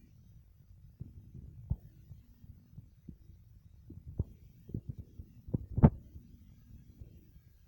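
Domestic cat purring in a low, steady rumble while being stroked, with soft bumps and rubbing from the hand and the phone mixed in; the loudest bump comes near the end.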